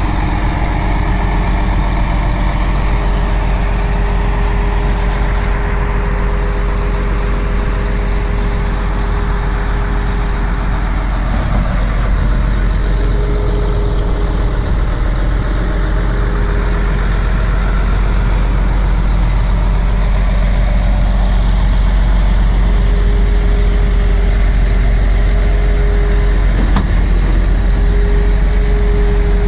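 Truck-mounted concrete pump running steadily during pumping. A mid-pitched tone drops in and out over the low engine drone.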